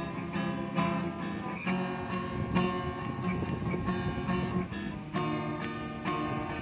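Acoustic guitar played solo, a steady run of picked and strummed chords with no voice.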